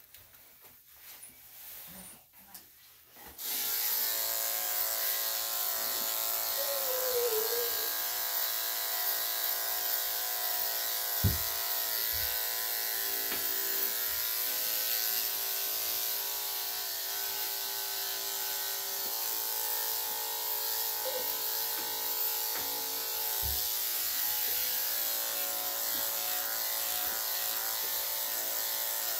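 Electric dog-grooming clippers fitted with a #3¾ blade switch on about three and a half seconds in and then run at a steady buzz, shaving a Shih-Tzu/Poodle cross's body coat. Two brief low thumps come partway through.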